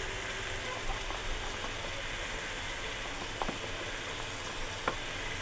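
Onion, tomato and potato masala frying in oil in a pan on a gas burner, sizzling steadily, just after ground chili and turmeric have gone in. A light click a little past three seconds in and a sharper one near the end.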